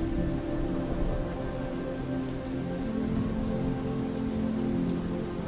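Steady rainfall, an even patter with a low rumble beneath, over soft music of slowly changing held notes.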